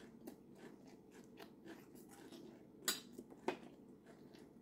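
A person chewing a mouthful of leafy green salad close to the microphone: soft, moist crunching with many small clicks, and two louder sharp clicks about three seconds in.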